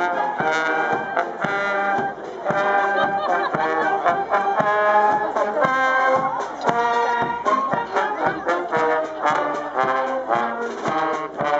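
Marching band playing a tune on brass and flutes over snare and tenor drums keeping a steady marching beat.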